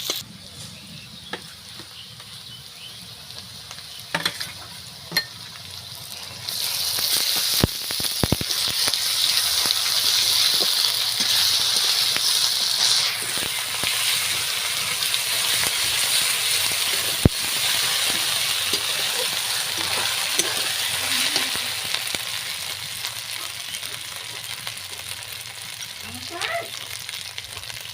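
Food sizzling as it fries in hot oil in a pan, swelling loudly about six seconds in and slowly dying down near the end, with a few sharp clinks of a utensil against the pan.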